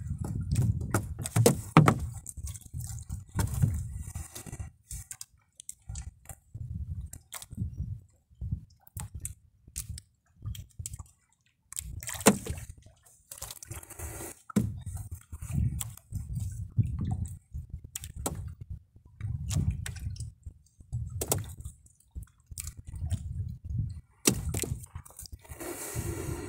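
Wet fishing net hauled by hand over the gunwale of a wooden boat: the mesh rustling and dripping water, with irregular low thuds and sharp knocks against the hull.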